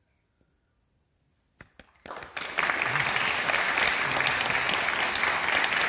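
Near silence, then a few single claps about one and a half seconds in that swell into steady audience applause from about two seconds in.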